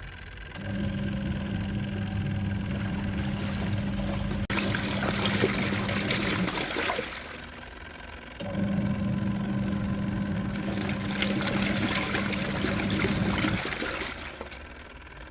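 Sponono washing machine's wash motor humming as it churns water and clothes in the tub. It runs about six seconds, stops for about two, then runs again for about five seconds.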